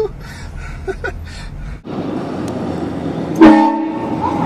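Train horn blasting once, a sudden loud chord about three and a half seconds in that fades over about a second, over steady road and engine noise.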